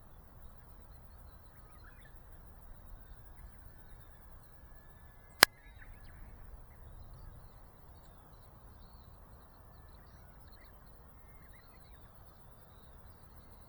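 Faint bird calls over a steady low rumble, with one sharp click about five seconds in.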